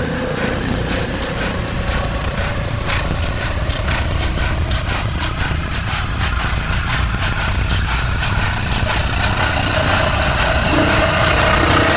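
A dance routine's soundtrack played over the hall speakers: a dense, low, rumbling drone with faint ticking, growing a little louder as held tones come in near the end.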